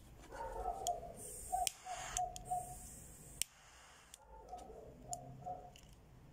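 Sharp clicks from a Guevara twin-jet torch lighter being operated and adjusted by hand, several spread irregularly with the loudest about a third and halfway in.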